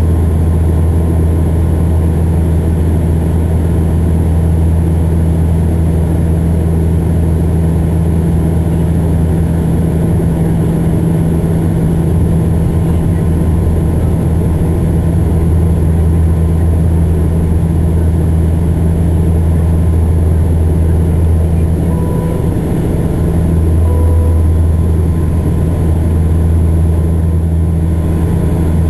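Steady low drone of a Saab 340's turboprop engines and propellers heard inside the passenger cabin during descent. The drone's tone shifts briefly about 22 seconds in, then settles again.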